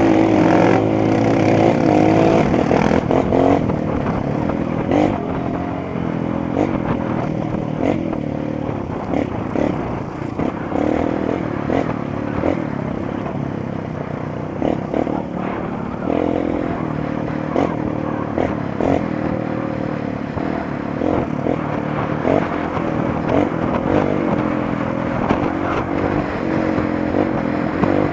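Honda CRF 230 single-cylinder four-stroke dirt bike engine running under constantly changing throttle, its pitch rising and falling, with frequent knocks and clatter over a rough trail.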